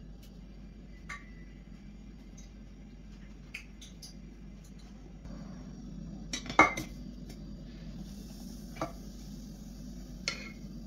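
Kitchen utensils and dishes clinking and knocking now and then, the loudest knock about two-thirds of the way in, over a steady low hum.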